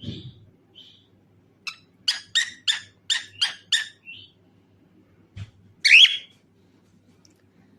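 Cockatiel chirping: a few soft calls, then a quick run of about six sharp chirps, about three a second, and one loud sliding call about six seconds in.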